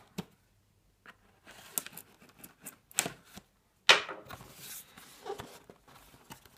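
A cardboard box being cut open and handled: short scraping and tearing noises as a blade slits the packaging, with a sharp knock about four seconds in as the box is turned over, followed by rustling.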